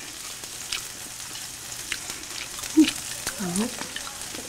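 Meat sizzling steadily on a hot grill pan over a tabletop gas stove. Metal tongs click lightly now and then as pieces are picked off the grill.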